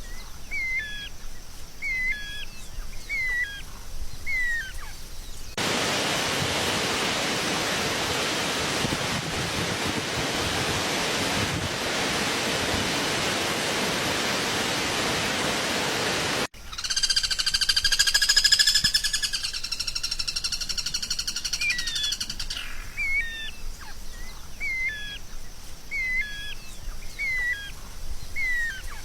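A songbird repeating short swooping whistled notes, about one every 0.7 seconds. A steady hiss takes over for about ten seconds, then a buzzy, layered trill runs for about six seconds before the swooping notes return.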